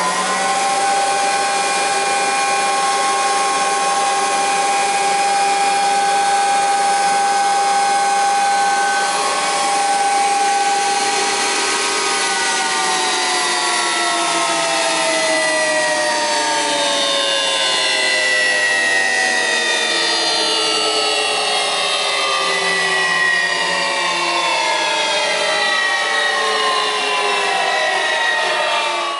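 Bäuerle spindle moulder's spindle running free with a steady multi-pitched whine, with no cutter fitted. About twelve seconds in it is switched off, and the whine falls steadily in pitch as the spindle coasts down.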